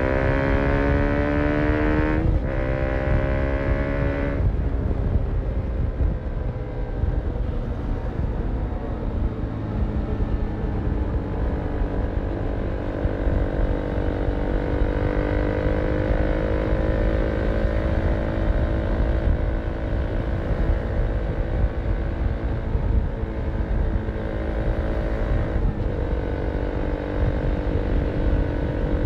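KTM motorcycle fitted with a long exhaust and dB-killer, heard from on board: the engine note rises under acceleration, with upshifts about two seconds in and again about four seconds in. It then settles into cruising at a nearly steady engine note.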